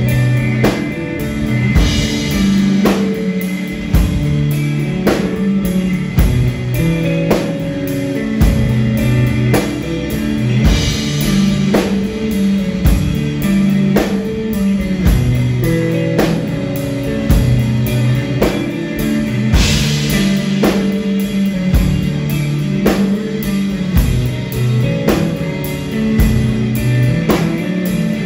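Live rock band playing: a distorted electric guitar riff over a drum kit, with steady drum strikes and a cymbal crash about every nine seconds.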